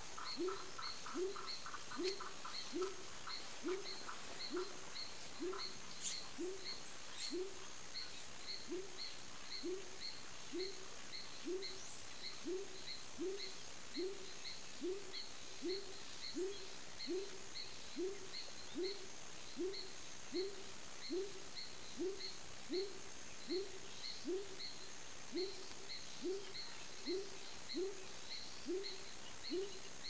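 Short, low hooting calls that drop in pitch, repeated evenly a little more than once a second, from an unseen animal, over a constant high thin whine. In the first two seconds a quick run of higher chirps joins in.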